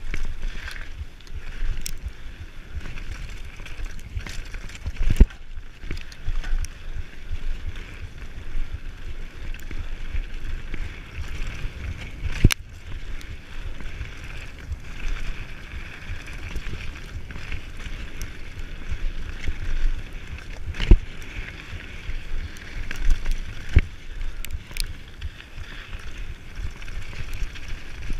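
Mountain bike riding fast down a gravel trail: a steady rumble of wind and tyres on loose gravel, with sharp knocks and rattles from the bike over bumps, the loudest about five, twelve and twenty-one seconds in.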